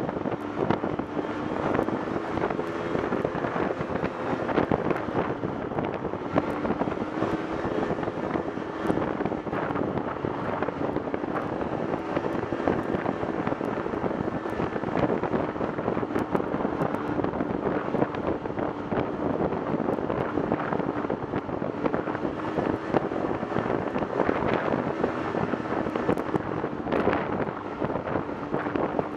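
Snowmobile engine running steadily at cruising speed along a trail, a constant drone that wavers slightly in pitch, with many small knocks and rattles throughout.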